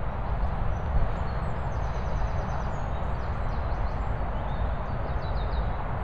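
Steady wind rumble on the microphone, with faint bird chirps on top, including a quick run of repeated notes about two seconds in and a few falling chirps near the end.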